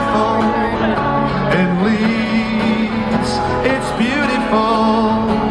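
Live pop music from a stage sound system: a singer over band backing, holding long notes.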